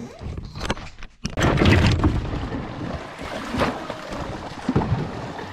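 Canoe being paddled: water splashing and rushing along the hull. It comes in suddenly about a second in, is loudest for the next second, then runs on steadily with a few sharper splashes.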